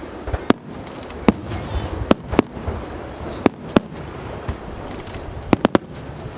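Aerial fireworks bursting: about nine sharp bangs at irregular intervals, including two close pairs and a quick triple near the end, over a steady background rumble.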